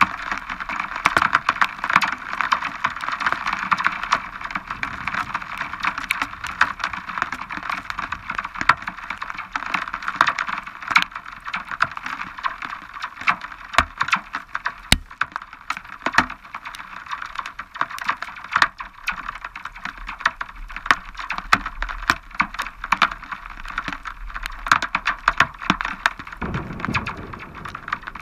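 Heavy storm rain pattering close to the microphone: many irregular ticks of drops striking over a steady hiss of rainfall, with a short low rumble near the end.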